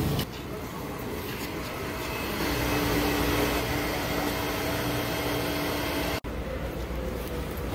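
Steady background noise of a large, busy indoor hall, with a low steady hum through the middle; the sound drops out for an instant about six seconds in.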